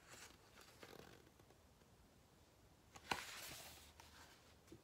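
Near silence, broken about three seconds in by a sharp tap and about a second of paper rustling as a picture-book page is turned.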